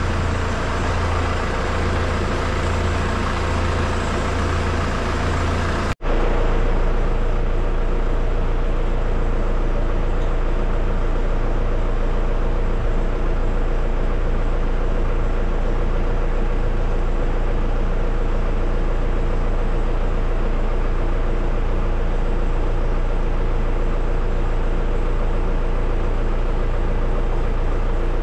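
Loud, steady drone of running machinery with a low hum, broken by a brief dropout about six seconds in.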